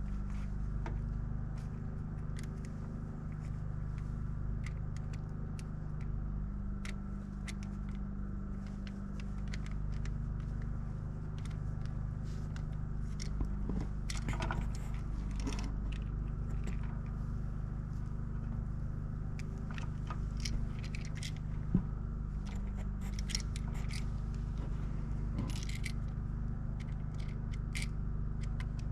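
Steady low hum with scattered small clicks and scrapes of objects being handled.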